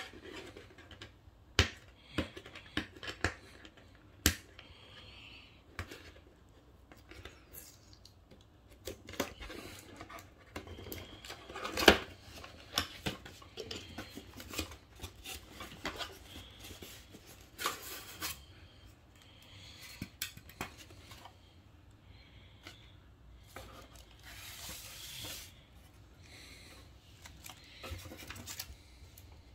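Cardboard gift box being opened by hand: irregular clicks, scrapes and snaps as the flaps are pried and folded back, with paper rustling as the tissue-wrapped item and a white moulded insert come out. The sharpest snap comes about twelve seconds in.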